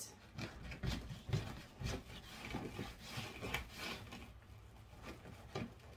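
Thin deco mesh being pulled, pressed flat and worked into a wreath by hand: irregular scratchy rustling and rubbing in short strokes, with a few sharper scrapes.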